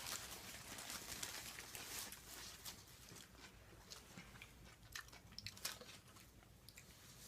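Faint chewing and biting: someone eating a sandwich, heard as soft scattered clicks and crunches.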